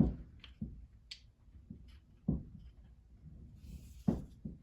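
A few sharp knocks and light clicks of a woodworking clamp and small glued wood pieces being handled while clamping. The knocks come at the start, about two seconds in and about four seconds in.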